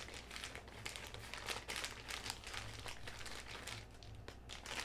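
Packaging crinkling and rustling in irregular handling noises as a charge adapter is unboxed.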